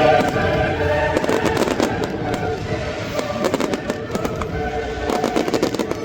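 Fireworks display: a dense run of rapid crackling pops, many small bangs close together, over music played for the show.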